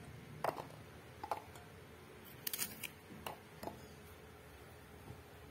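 Kitchen knife cutting shallot and garlic cloves in the hand, with pieces dropping into a chopper bowl: about half a dozen short sharp snicks and clicks over the first three to four seconds, then only a faint background.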